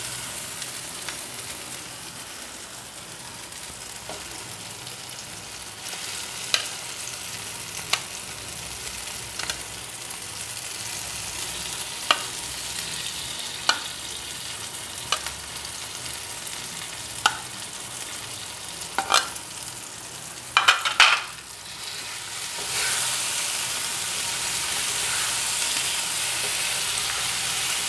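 Spiced masala gravy sizzling in oil in a non-stick frying pan as chicken pieces are added and stirred in, with sharp knocks of the spatula and fork on the pan every second or two. The sizzle grows louder a little over twenty seconds in.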